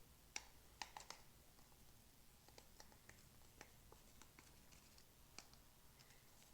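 Faint, irregular clicks and light taps from a screwdriver being dipped and rolled in egg wash and flour, a few a second, with a slightly louder tap about five seconds in.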